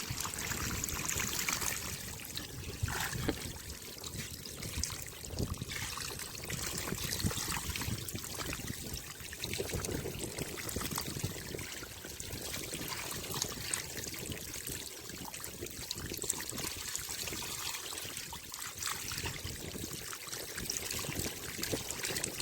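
Water trickling and flowing steadily, an even watery hiss.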